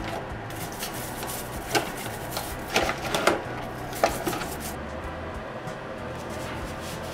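The rusty steel screw of a leg vise knocking and scraping against a cut-open plastic bottle as it is wiped with a rag: a few sharp knocks between about two and four seconds in, with rubbing between them.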